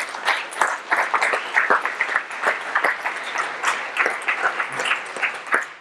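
Audience applauding, with many hands clapping densely and steadily.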